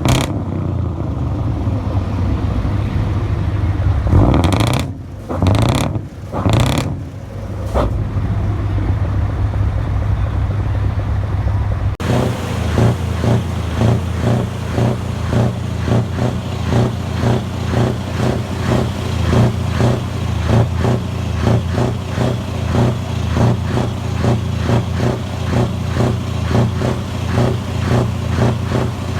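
Truck engine running on open exhaust pipes, idling with a deep rumble and blipped a few times about four to eight seconds in. From about twelve seconds in, a loud engine on open pipes pulses in a steady rise and fall about twice a second.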